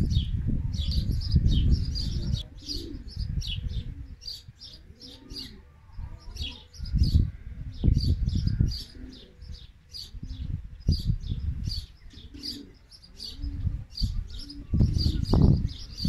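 Garden birds chirping over and over in short high notes, with a dove cooing now and then. Bursts of low rumbling noise come and go, loudest near the start and the end.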